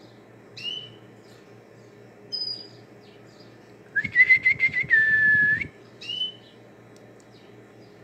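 Cockatiel whistling: a short falling note about half a second in, a brief high note, then a longer warbling whistle that settles into a held note, and one more short call near the end.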